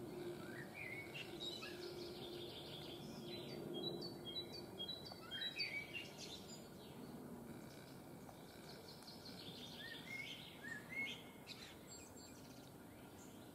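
Wild songbirds singing faintly in two passages of chirps, rising notes and quick repeated notes: one through the first half and another around ten seconds in.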